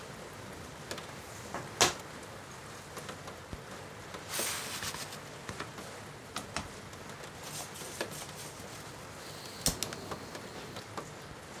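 Scattered clicks, knocks and rustles of camp gear being handled, with a sharp clack about two seconds in and a short rustle around four seconds. Another sharp click near the end as a small canister backpacking stove is lit.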